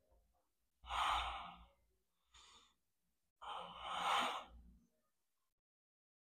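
A man breathing hard through barbell hip-thrust reps: two loud, heavy exhales about two and a half seconds apart, with a faint breath between them.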